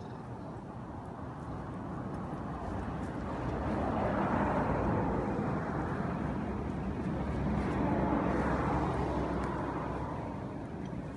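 Road traffic passing by, a rising and falling rush of vehicle noise that swells to two peaks, about four and eight seconds in, then fades.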